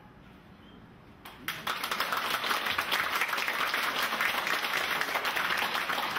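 Audience applauding, starting suddenly about one and a half seconds in after a short hush.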